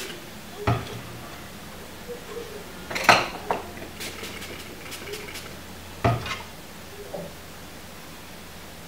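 Small metal tools and a circuit board being handled on a workbench: sharp metallic clinks and knocks about a second in, the loudest around three seconds in with two smaller ones just after, and another around six seconds in, over a faint steady hum.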